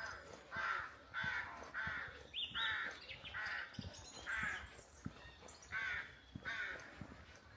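A crow cawing over and over, about ten harsh calls at a steady pace that grow weaker near the end. A small bird gives a brief rising chirp about two and a half seconds in.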